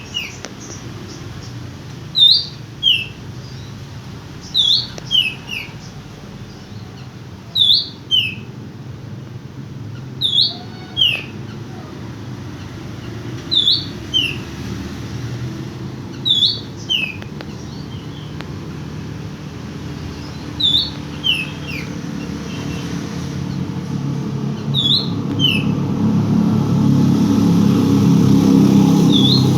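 Oriental magpie-robin repeating a short two-note call, a high slurred note then a lower one, about every two and a half to three seconds. A low engine rumble builds underneath and is loudest near the end.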